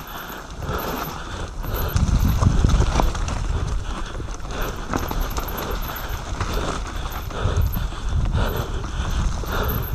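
Mountain bike descending a dirt forest trail at speed: tyres rolling and scrabbling over soil and roots, the bike's chain and frame rattling over bumps, with low wind rumble on the camera microphone.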